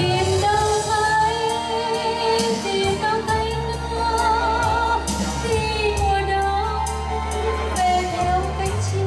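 A woman singing into a handheld microphone over instrumental accompaniment, with a steady bass and a regular ticking beat. Her long held notes waver with vibrato.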